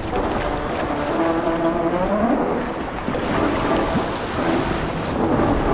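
Shallow surf washing and water splashing as a bull shark swishes its tail, under background music with held notes that glide at their ends.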